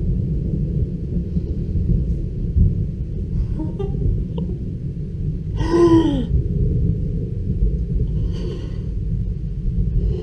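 Thunder rumbling low and continuously from a thunderstorm. About six seconds in comes a brief human vocal sound whose pitch bends down and back up, like a gasp.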